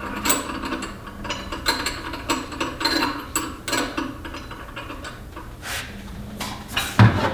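Metal parts of a Cabela's Carnivore meat grinder head clicking and clinking as the cutting blade is fitted onto the auger, with quick repeated clicks for about four seconds, then fewer, and a sharper knock near the end.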